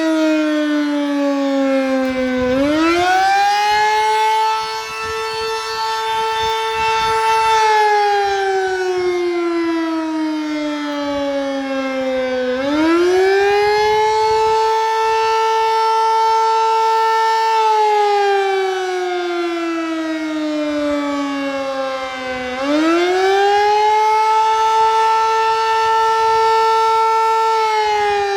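Sterling Model M electromechanical outdoor warning siren sounding a loud wail: three times it climbs quickly in pitch, holds steady for about five seconds, then slowly winds down, about every ten seconds.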